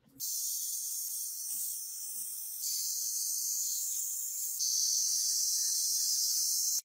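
Angle grinder's cut-off disc cutting through a steel tube: a steady, high-pitched hiss that steps louder twice and stops abruptly near the end.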